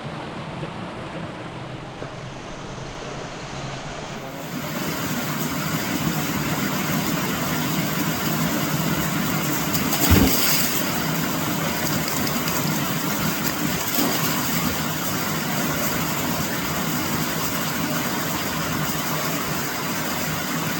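Steady rush of a creek's flowing water, growing louder and brighter about four seconds in and then holding, with a single knock near the middle.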